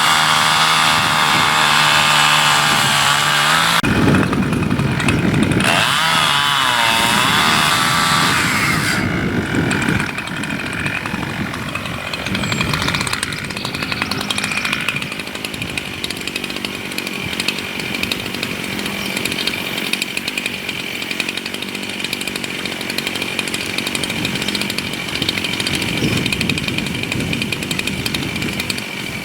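Two-stroke chainsaw running at full throttle. From about four seconds in its pitch sags and wavers as the chain cuts into the wood of a dead oak, and it then runs on lower and steadier.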